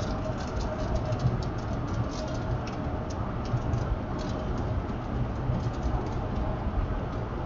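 Steady road noise inside a moving vehicle's cabin: a low rumble of tyres and engine, with scattered light ticks.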